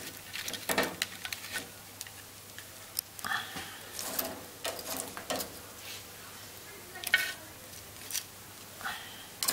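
Scattered light clicks and clinks of metal-tipped cooking chopsticks against grilled king crab shell and a plate as the crab legs are set in place, some with a brief ring, over a low steady hum.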